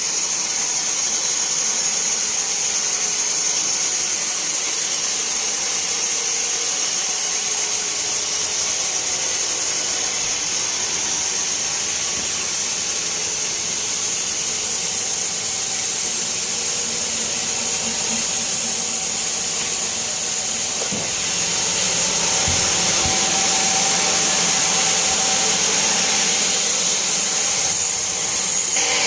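Band sawmill cutting through a large teak log: a steady, hissing, high-pitched saw noise.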